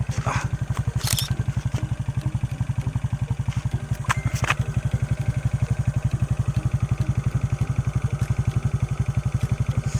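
Honda XRM 125 Fi's single-cylinder four-stroke engine idling through an aftermarket chicken-pipe exhaust with a big elbow, unrevved. It makes a steady, loud run of rapid exhaust pulses, with a clattering tick that the owner considers normal. A couple of brief clicks come about a second in and about four seconds in.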